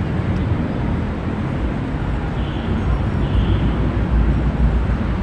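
Steady city street traffic noise with a low rumble that grows stronger in the second half, and two brief faint high squeaks a little past halfway.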